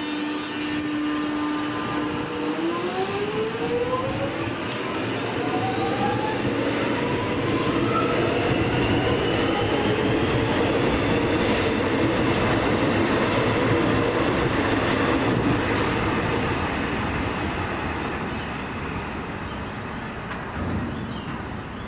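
X'trapolis electric suburban train departing the platform. Its traction motors hum steadily, then about two and a half seconds in the whine climbs in several rising tones as it accelerates away. Wheel and running noise builds to a peak, then fades as the train draws off.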